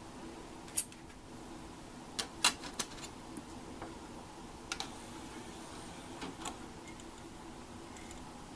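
Irregular sharp clicks and knocks of small hard parts, the loudest about a second in and a quick cluster around two to three seconds, over a faint steady hum.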